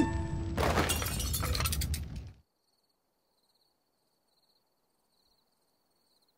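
A loud shattering crash with ringing, like breaking glass, that cuts off suddenly after about two and a half seconds, leaving near silence with a faint, steadily repeated high chirping.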